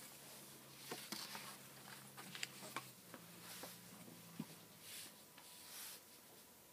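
Faint rustling and a few light taps from cardboard wheel cut-outs being handled on a table, over a low steady room hum.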